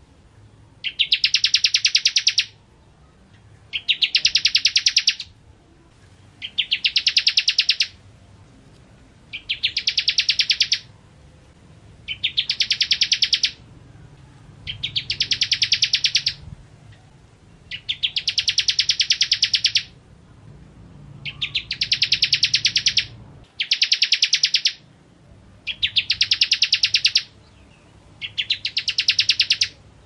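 A ciblek kristal, a small prinia songbird, in full song: a fast trilling phrase of rapid high notes lasting about a second and a half, repeated over and over with short pauses of about a second between phrases.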